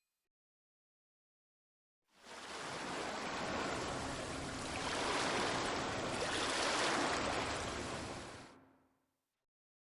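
Rushing, water-like noise. It fades in about two seconds in, swells a little in the middle, and fades away near the end.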